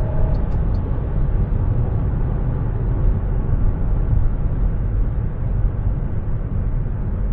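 MG HS with a 1.5-litre turbo petrol engine and 7-speed dual-clutch gearbox accelerating at full throttle: a steady low rumble of engine and tyre noise at speed.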